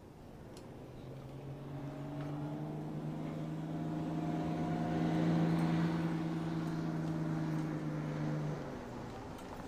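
Motor vehicle engine running at a steady pitch, growing louder through the middle and cutting off abruptly near the end.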